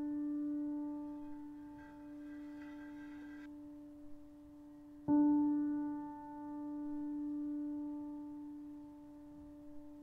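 Sparse, slow grand piano music: a single mid-range note, struck just before and still fading at the start, is struck again about five seconds in and left to ring out and slowly die away.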